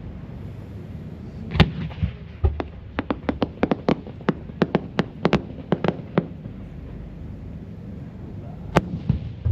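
Fireworks going off: a single bang about a second and a half in, then a quick run of sharp cracks over about three seconds, and another bang near the end.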